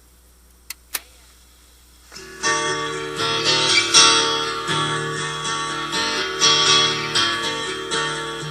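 Two short clicks, then a strummed guitar-led band intro starts about two seconds in and plays on with a steady beat.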